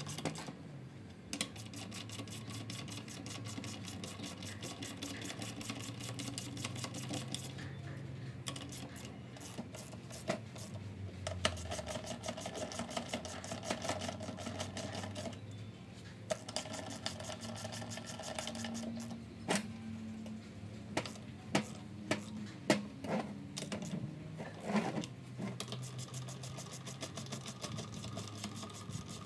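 Hand ratchet wrench clicking in quick runs as nuts are run down on the studs of a steel coupling drive gear. A few sharper metal clinks of tools and parts come in the second half.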